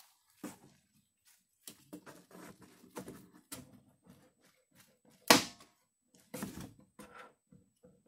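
Plastic retaining clips of a 1997 Land Rover Discovery's door card being pried out with a trim tool: scattered small clicks and scrapes, and one sharp loud pop about five seconds in as a clip lets go of the door.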